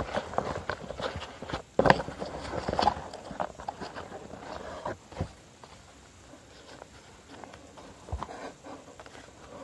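Copy paper being folded and creased by hand against a tabletop: crackling, rustling and quick taps, busiest in the first half, then only a few light taps.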